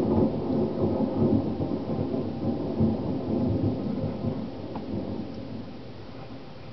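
Thunder rumbling low and slowly dying away, with rain falling.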